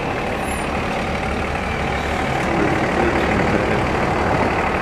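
A large vehicle's engine idling, a steady rumble.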